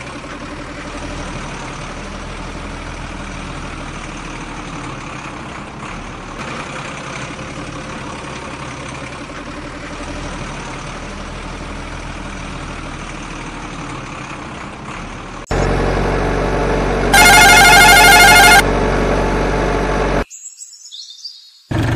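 Truck engine sound, dubbed over the toy trucks, running steadily at idle. About fifteen seconds in, a louder engine sound cuts in suddenly and a loud warbling tone sounds for about a second and a half. Near the end the sound briefly drops out under a falling whistle, then the engine resumes.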